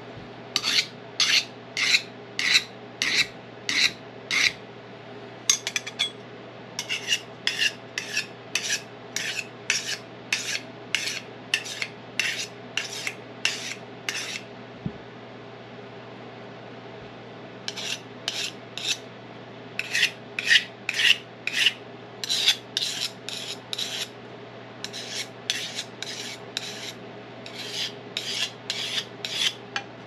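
Steel throwing-knife blade stroked against a handheld sharpening plate. The rasping strokes come about two a second, in runs of several strokes separated by short pauses, over a steady low hum.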